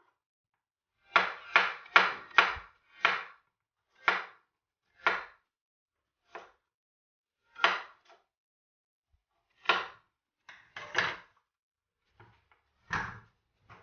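Kitchen knife slicing raw potatoes and knocking on a wooden chopping board: a run of separate sharp knocks, four in quick succession about a second in, then roughly one a second with short gaps.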